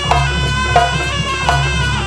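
Live Javanese traditional music for a Sampakan dance: a wind instrument plays a sustained melody with quick downward pitch bends over a steady, repeating drum beat.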